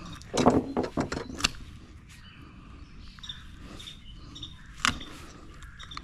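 Shears crunching and snipping through the bony jaw of a large sheepshead: a quick run of crunches in the first second and a half, then one sharp snip near the end.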